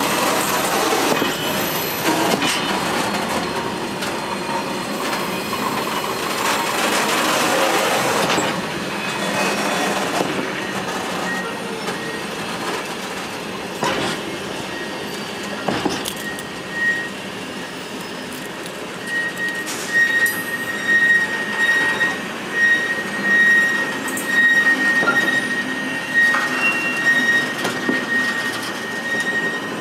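Freight wagons rolling slowly past, steel wheels rumbling and clanking over the rail, with a couple of sharp knocks midway. From a little past halfway a high, steady metallic squeal sets in, with irregular loud clanks and squeaks on top.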